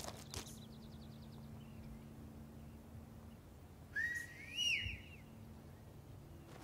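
A short whistle about four seconds in: a rising note, then a few quick up-and-down notes. Before it, a single footstep on gravel near the start.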